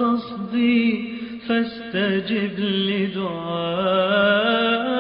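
Arabic Islamic nasheed: a voice singing long, melismatic held notes that waver in pitch, phrase after phrase with short breaths between.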